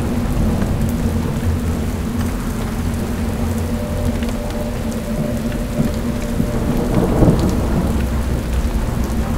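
Steady rain with a low, continuous thunder rumble, as a soundtrack effect, with a brief louder swell about seven seconds in.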